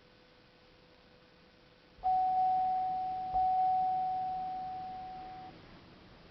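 Car dashboard warning chime sounding two bell-like bongs about a second and a half apart, each ringing and then fading, as the key is turned in a car that will not crank or start.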